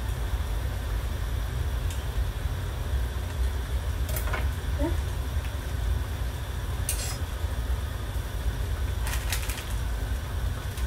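A steady low rumble of kitchen background noise, with a few short sharp clicks and taps of kitchen utensils about four, seven and nine seconds in.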